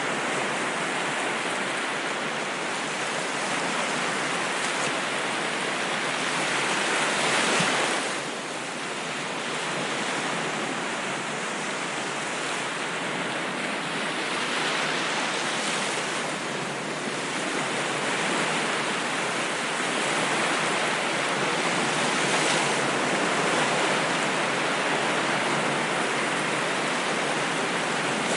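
Ocean surf: a continuous wash of waves that rises and falls. The loudest wave builds and breaks about seven seconds in and falls away suddenly, with further swells later on.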